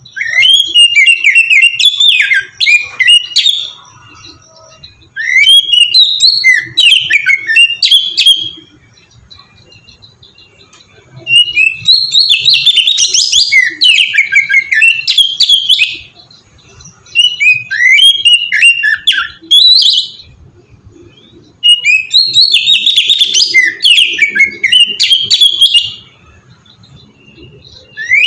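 Oriental magpie-robin (kacer) singing loudly in bouts of rapid, varied whistled phrases: about five bursts of three to four seconds each, with short pauses between them.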